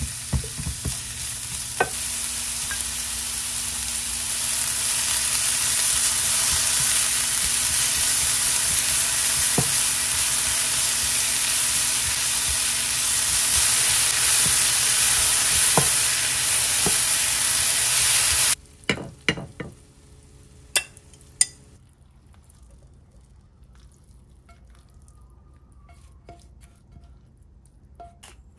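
Food sizzling in a hot frying pan while it is stirred, with occasional sharp taps of the utensil against the pan; the sizzle builds over the first few seconds. About two-thirds of the way through, the sizzling cuts off suddenly, followed by a few sharp clicks and knocks and then quiet.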